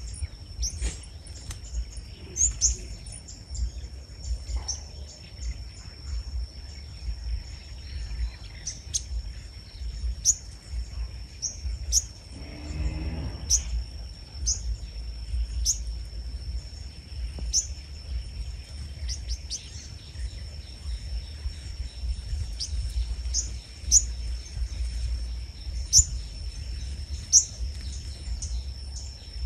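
Small birds giving short, sharp, high chirps every second or two, over a steady high-pitched tone and a low wind rumble on the microphone. A brief lower sound rises and falls about halfway through.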